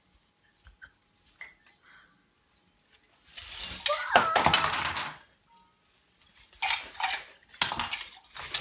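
Christmas tree branches, tinsel and ornaments rustling and clinking as kittens scramble through the tree. A loud rustling burst comes about three seconds in, followed by two shorter bursts near the end.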